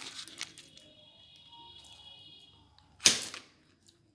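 Knife slicing a block of butter in its paper wrapper: faint handling sounds, then one short, sharp crackle about three seconds in.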